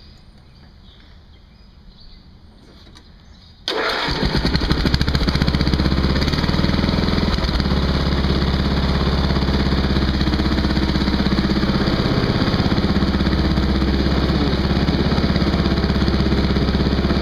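Wheel Horse 211-5 tractor's 11 hp single-cylinder Briggs & Stratton gas engine firing up on its electric starter about four seconds in, catching almost at once. It then runs steadily through a short 1.5-inch straight exhaust stack.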